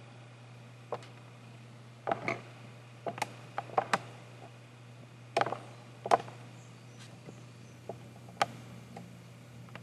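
Computer keyboard keys clicking one keystroke at a time at an uneven pace, some in quick clusters, over a steady low hum.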